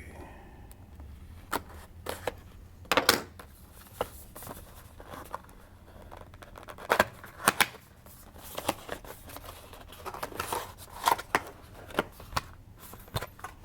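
Packaging of an M.2 NVMe SSD being handled and opened by hand: irregular clicks, scrapes and crinkles, with a few sharper snaps.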